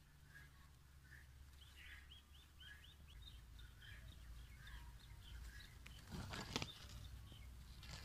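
Faint outdoor birdsong: a short chirp repeating about twice a second, with a quick run of rising chirps a couple of seconds in. A brief rustle with a few clicks about six seconds in.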